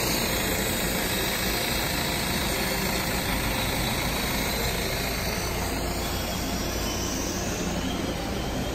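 Honda Amaze's four-cylinder diesel engine idling steadily while decarbonising liquid is drawn into its intake.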